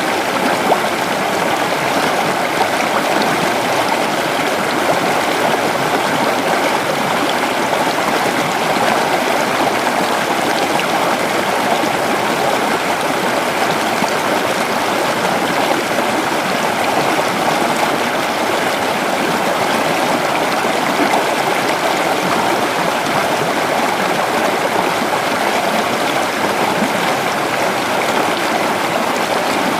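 Creek water flowing over rocks, a steady rushing and babbling.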